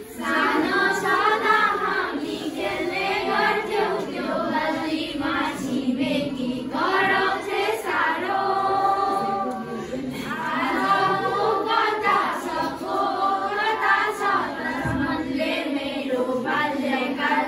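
A class of schoolchildren singing together in unison, unaccompanied, with some long-held notes.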